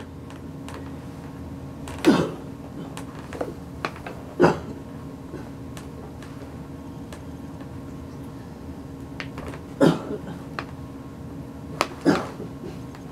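A woman with quadriplegia coughing hard four times, a few seconds apart, bending forward to force each cough out because her chest muscles are weak; she calls it a rough one.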